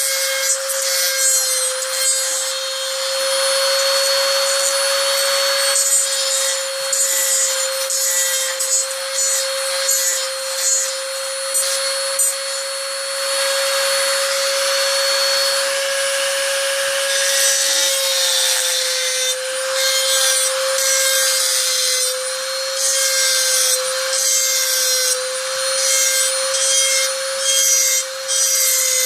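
Small high-speed rotary tool running with a steady whine while grinding down a small piece inside a Hot Wheels toy car body; the grinding noise rises and falls as the bit bites and lifts off.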